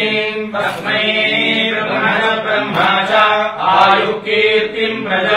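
Male priests chanting Sanskrit Vedic mantras in a steady, sing-song recitation, a blessing chant.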